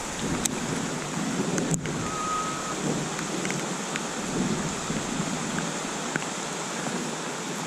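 Heavy rain falling steadily, with a low rumble of thunder underneath.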